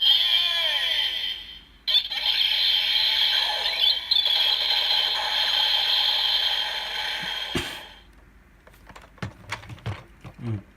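Electronic finisher sound effect from a Kamen Rider Build transformation toy's small built-in speaker. It opens with about two seconds of falling swoops, then a sustained high-pitched effect that cuts off with a click nearly eight seconds in. Light clicks of the plastic toy being handled follow.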